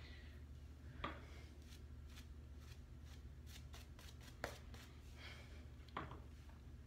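Faint bristly scratching of a shaving brush working lather onto stubble, with a few light taps, about a second in, midway and near the end.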